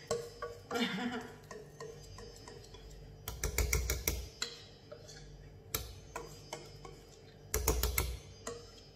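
Wire whisk clicking and scraping against a stainless steel mixing bowl as batter is scraped out into a loaf pan. It is an irregular run of sharp clicks, busiest about three to four seconds in and again near the end, where there are a few dull knocks.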